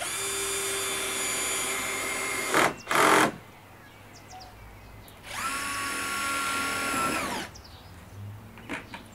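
Power drill driving screws through clear corrugated plastic roofing panels in two runs of about two seconds each. A short, loud rattle follows just after the first run, and the motor winds down at the end of the second.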